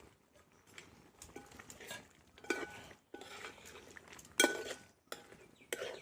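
A cooking spoon scraping and clinking against a pan as rabbit meat and coconut pieces are stirred, in irregular strokes, the loudest about four and a half seconds in.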